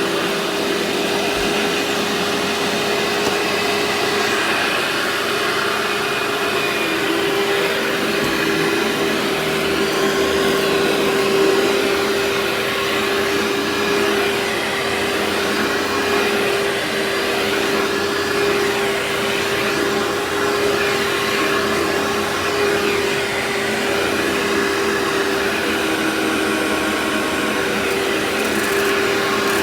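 Workhorse vacuum cleaner running steadily, a continuous rushing of air with a steady motor hum.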